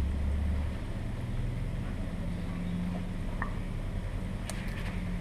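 A low mechanical hum that steps up in pitch about two seconds in, with a few faint small clicks near the end.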